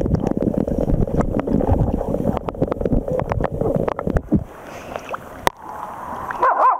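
Lake water sloshing and splashing right at the microphone of a camera held at the surface, full of small crackling splashes and bubbling. It turns quieter about four and a half seconds in, and a high voice begins right at the end.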